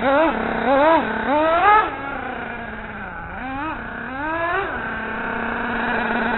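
Radio-controlled car's motor revving in short throttle bursts, each a quick rise and fall in pitch. Several come in the first two seconds and two more follow past the middle, over a steady low hum.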